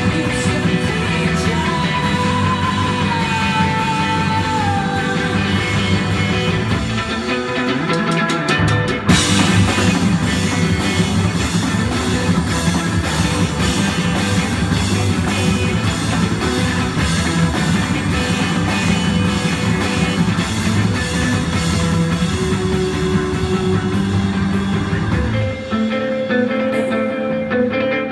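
Live rock band playing: electric guitar, electric bass, drum kit and keyboard, with a female lead vocal. A loud accent lands about nine seconds in, and near the end the bass and drums drop out, leaving held notes ringing.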